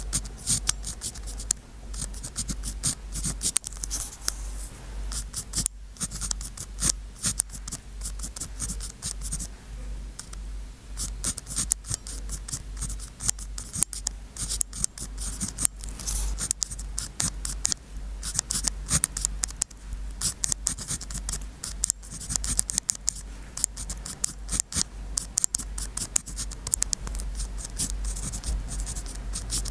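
Pen nib scratching across sticky-note paper in quick, short strokes of handwriting, with a brief lull about ten seconds in.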